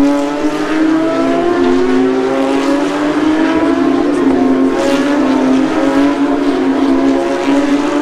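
A pack of race cars accelerating through a corner and passing at high revs. Several engine notes overlap, each climbing in pitch and dropping back as the cars change gear and go by.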